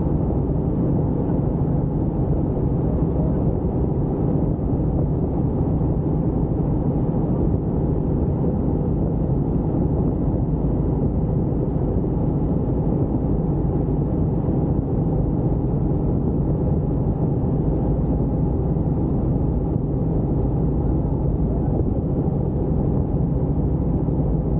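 Helicopter in flight: a steady, unchanging drone of engine and rotor, with low hum bands under an even noise.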